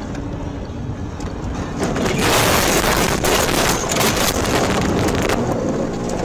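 Car driving on a snowy road with a steady low road and engine rumble. About two seconds in, a loud rushing, crackling noise lasts about three seconds as snow engulfs the car and whites out the view, then it drops back to the rumble.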